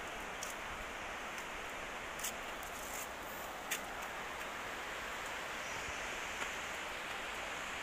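Steady rushing hiss of Khandadhar waterfall's water heard from a distance, with a few faint clicks.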